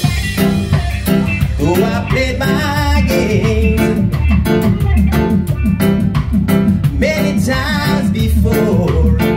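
Live reggae band playing: electric guitar, bass guitar and drum kit, with voices singing over a steady, pulsing bass line.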